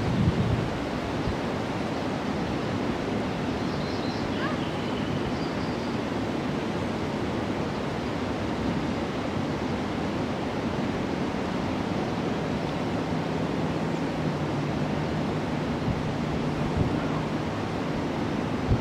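Steady rushing outdoor noise, with a few faint high chirps about four seconds in.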